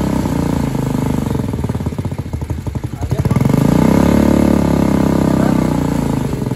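Motorcycle engine running through its exhaust with a rapid firing pulse. The engine note dips, then rises and swells to its loudest about four to five seconds in, and falls back.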